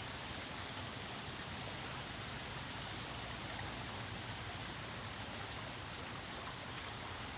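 Steady, even rushing ambient noise with no distinct events.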